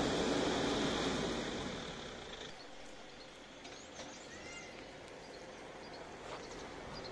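A steady rushing noise, loud at first, drops away about two and a half seconds in to quiet outdoor ambience with a few brief bird chirps.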